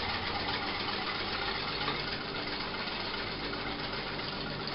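Electric stand mixer running steadily, its motor humming as the beater mixes pancake batter in the steel bowl.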